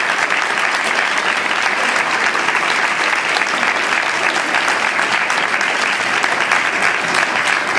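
Audience applauding, a dense, steady clapping that keeps up without letting off.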